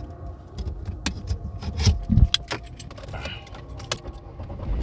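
Clicking and clinking of small objects being handled inside a parked car, with a couple of dull thumps about two seconds in.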